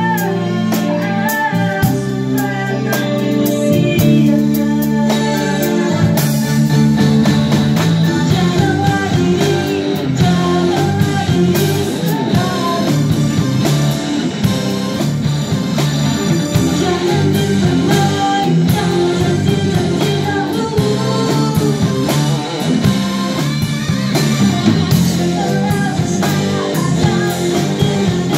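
A live band rehearsing a Malay rock song: a woman singing over electric bass guitar, keyboard and drums. The drums pick up about six seconds in.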